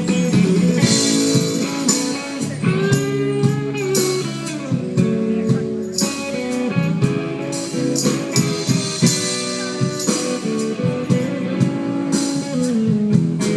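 Live band playing guitar-led music, bluesy in style, with sharp percussive hits through it.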